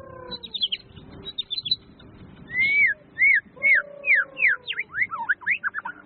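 White-rumped shama (murai batu) singing. First come short, sharp high notes and falling whistles. From about two and a half seconds in comes a loud run of arched, down-slurred whistles that quickens toward the end.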